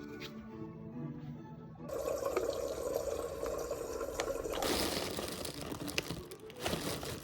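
Background music, then water running or pouring from about two seconds in, louder from about four and a half seconds in.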